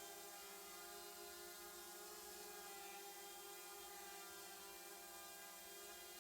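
Faint steady hum made of several fixed tones, unchanging throughout.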